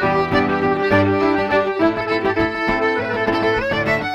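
Irish traditional dance tune played live by a fiddle and button accordion carrying a quick melody together over guitar accompaniment.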